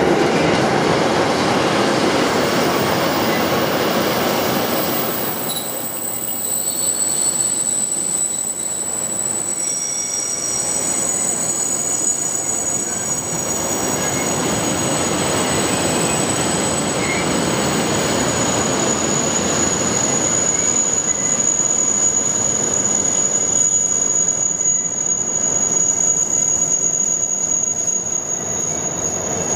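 Freight train of enclosed car-carrier wagons rolling past on the rails, a steady rumble of wheels on track. About five seconds in, a thin high-pitched wheel squeal sets in and holds.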